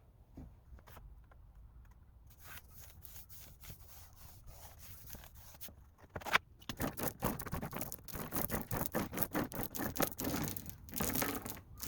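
Rapid repeated scraping strokes on plastic laminate sheet: sparse at first, then denser and louder from about six seconds in, with one sharp knock at that point.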